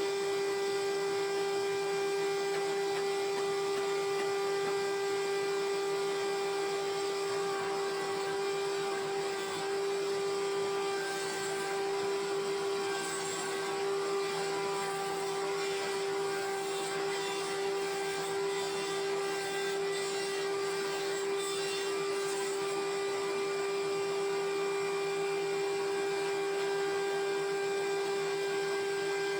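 Sawmill machinery running with a steady whine that holds one pitch throughout.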